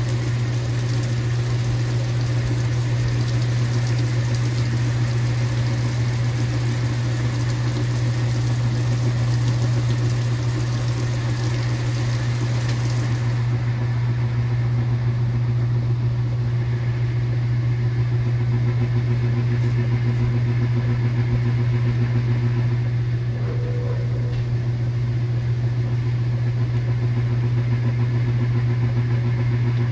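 KitchenAid washing machine running steadily through its cycle, a loud even motor hum, with a higher hiss that stops about 13 seconds in.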